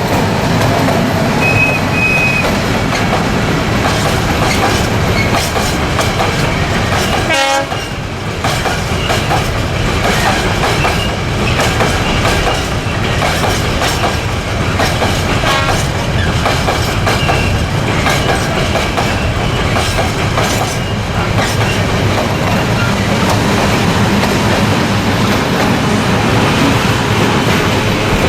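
Loaded freight train of limestone wagons rolling past, its wheels clacking steadily over the rail joints, with a brief dip about seven seconds in.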